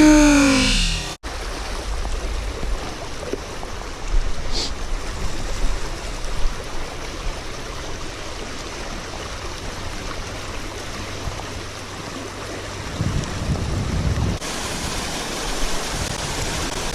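Music cuts off about a second in. After that comes the steady rush of floodwater pouring through a spillway, with some low wind rumble on the microphone.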